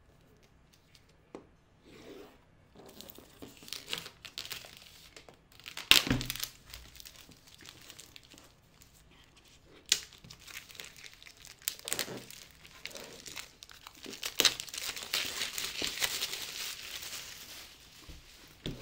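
Cardboard keyboard box being opened by hand: scattered knocks and scrapes, crinkling and tearing as the seal is cut, with one sharp knock about a third of the way in and a long rustling stretch near the end.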